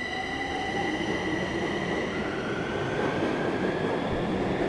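Bucharest Metro train pulling out of the station and gathering speed along the platform: a steady rumble of wheels on rails under a high whine, one tone fading over the first few seconds while another rises in pitch as the train speeds up.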